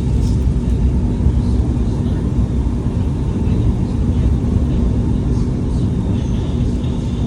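Light-rail train running: a steady low rumble with a faint steady hum.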